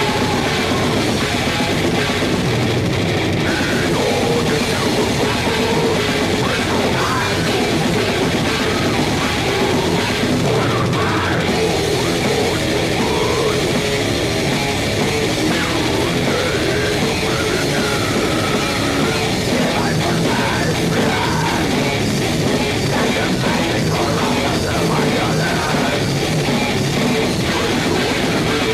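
Death metal song played loud and dense, with heavily distorted electric guitar.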